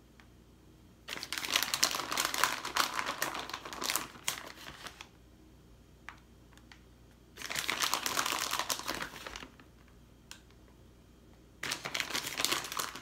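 Plastic bag of shredded mozzarella crinkling as it is handled and cheese is pulled out of it, in three bursts of a couple of seconds each, a few seconds apart.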